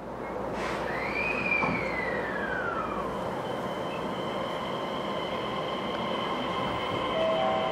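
JR East E131 series electric train heard from inside the passenger car, running with a steady rumble. Its traction inverter whines in a tone that rises, then glides down over about two seconds as the train accelerates. It then settles into several steady high tones.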